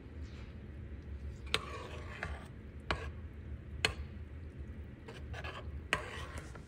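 A spoon stirring a wet oat, almond milk and spice mixture in a mini slow cooker's crock: soft scraping, with four sharp knocks of the spoon against the side of the pot.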